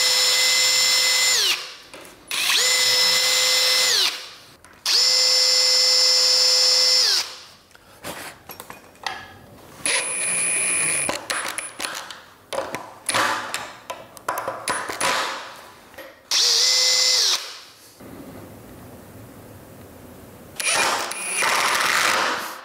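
Cordless drill driver screwing steel pocket-door hanger brackets into the solid walnut lipping on a door's top edge. There are three runs of steady motor whine of about two seconds each, each winding down as the trigger is let go, then a shorter run about sixteen seconds in. Short clicks and knocks of handling come between the runs.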